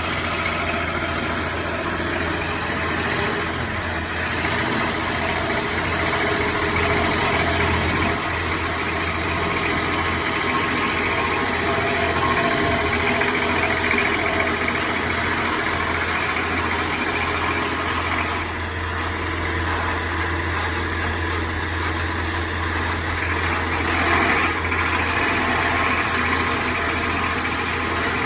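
Large stump grinder running steadily, its engine droning under load as the cutter wheel grinds down a big tree stump.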